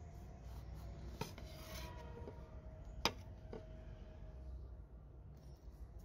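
A long knife cutting through an orange on a plate, the blade scraping and striking the plate in a few sharp clinks that ring briefly; the loudest clink comes about three seconds in.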